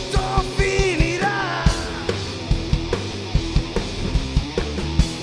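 Live rock band (distorted electric guitar, bass guitar and drum kit) playing an instrumental stretch between vocal lines, over a steady, driving drum beat. A line of bending, sliding notes sounds over the band in the first two seconds.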